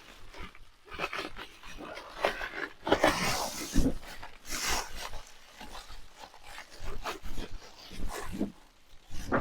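Foam pieces being pulled and worked out of the roof ribs of a Promaster cargo van: irregular squeaking, scraping and rubbing, in short uneven bursts.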